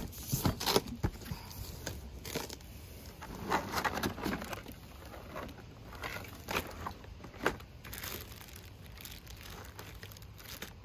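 Rustling and crinkling of cardboard and a plastic bag as a wire-frame light-up decoration is lifted out of a box, with scattered irregular clicks and scrapes.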